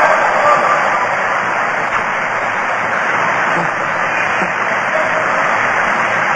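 A live audience's steady noisy din of murmured approval in an old, hissy recording between recited verses, slowly easing off.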